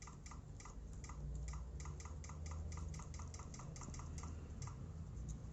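Keyboard-tester web page's click sound repeating evenly, about five clicks a second, from the laptop's speakers as a faulty key registers by itself with nobody pressing it: the sign of a stuck or shorted key, which the owner takes for a hardware fault in the keyboard.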